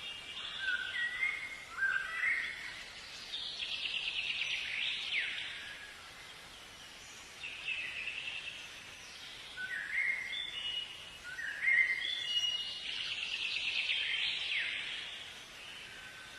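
A songbird singing the same song twice. Each song is a few short notes stepping up in pitch, followed by a long, rapid, buzzy trill.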